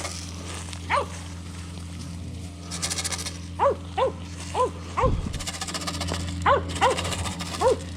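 Blue Lacy herding dog barking in short, sharp yips while working cattle, about eight barks in loose clusters. A steady low hum runs underneath.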